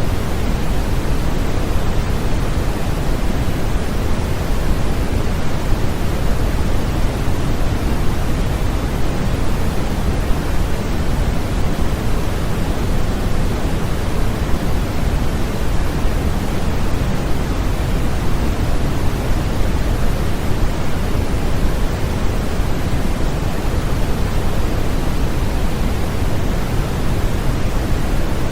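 Continuous, unchanging generated noise for infant sleep, heavier in the bass than in the treble like pink noise.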